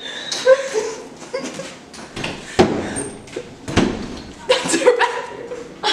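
A wooden interior door being shut and bumped: several dull thumps and knocks, with short bits of voice between them.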